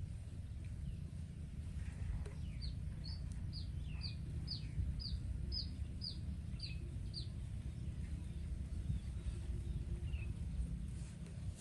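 A bird calling: a run of about ten short, high chirps, each sliding downward, roughly two a second, with a few single chirps later. A steady low rumble runs underneath.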